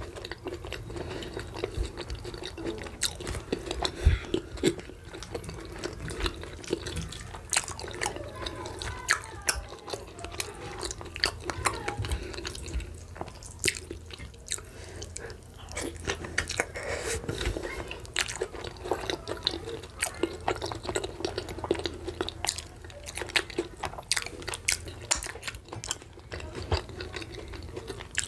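Close-miked chewing and wet mouth sounds of a person eating boiled cocoyam and egg with pepper dip by hand: a steady run of small, sharp, irregular smacks and clicks.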